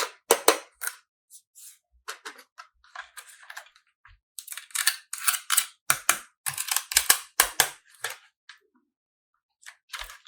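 Irregular sharp clicks and crackles in quick clusters, densest in the middle and again near the end, like small hard objects being handled and tapped.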